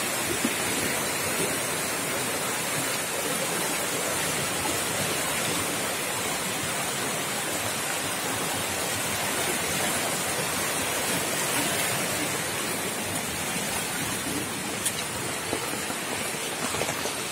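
River in flood, swollen by torrential rain, its fast water rushing past the bank with a steady, even noise.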